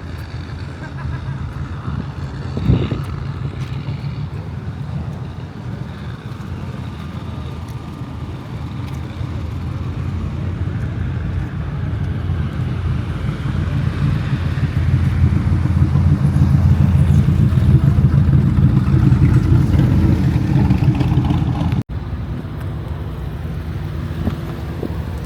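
Car engine running with a low rumble that builds louder through the middle stretch, then drops back after a sudden brief break near the end. A single sharp knock sounds about three seconds in.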